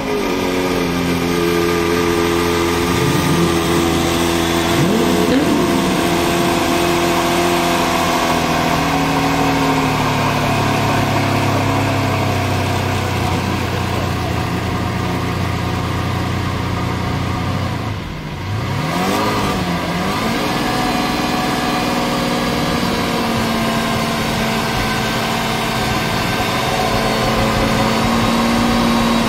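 Lamborghini Veneno's 6.5-litre V12 idling just after being started, with two short throttle blips a few seconds in. About two-thirds through it dips briefly, then revs once, rising and falling, and settles into a steady idle.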